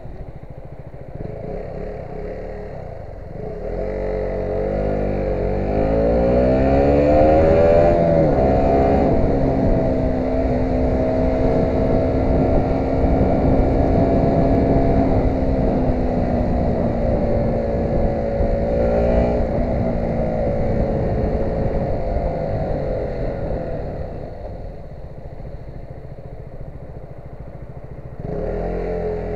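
A vehicle's engine speeds up a few seconds in, holds a steady cruising pitch, eases off near the end and picks up again just before the close.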